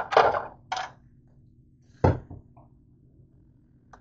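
Cookware clattering: two noisy clatters in the first second, then a sharp clank about two seconds in as a glass lid is set onto the frying pan.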